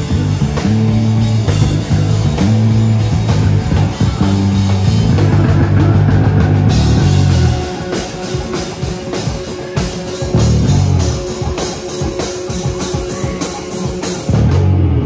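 Live rock band playing electric guitars and a drum kit. Heavy held chords with drum hits fill the first half, then break off about halfway, leaving drums and short chord stabs.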